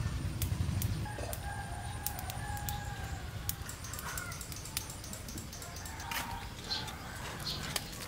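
A rooster crowing once, a long drawn-out call starting about a second in, over scattered sharp clicks.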